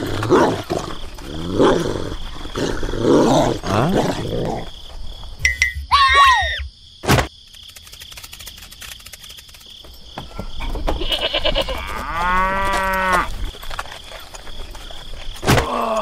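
Dubbed animal-call sound effects. Several rising, whining calls come in the first few seconds, a short chirp comes about six seconds in and a sharp click follows it, then a single wavering call comes near the end.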